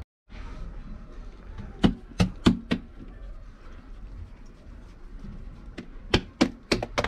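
Hands slapping a ball of naan dough flat between the palms: four sharp pats about two seconds in, then a quicker run of pats, about three a second, near the end.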